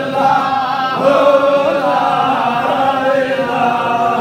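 Many men's voices chanting together in long, held sung lines: a group devotional chant with no instruments.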